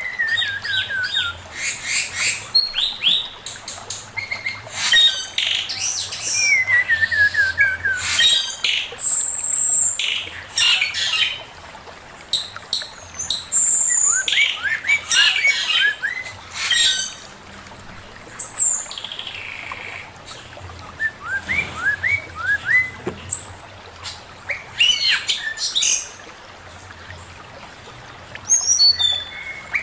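Male poksay mandarin laughingthrush singing a varied, chattering song: quick chirps, whistled notes sliding downward, and harsh squawks, in bursts broken by short pauses.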